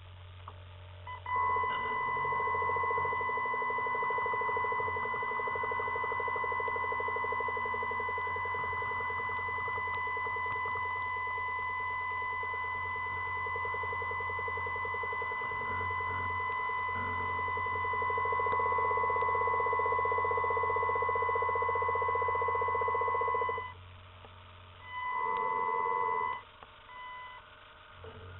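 A steady buzzing tone runs for about twenty seconds and cuts off suddenly, then returns as a shorter burst a second or so later, over a constant low hum.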